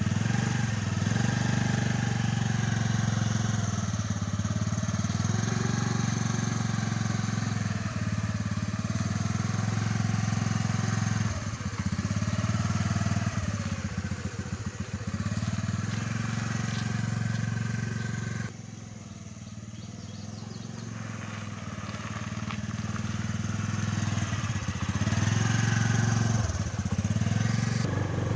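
A small motor-scooter engine runs, its pitch rising and falling as the throttle is worked. About two-thirds of the way through the sound drops suddenly, then builds back up to full loudness.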